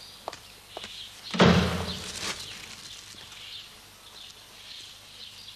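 A door slamming shut once, about a second and a half in, followed by faint bird chirps.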